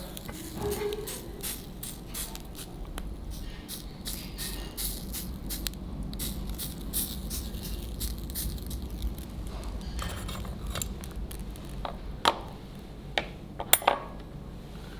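Squid sizzling and crackling on a grill over hot binchotan charcoal, with many fine irregular crackles. Near the end come a few sharp clinks of tableware.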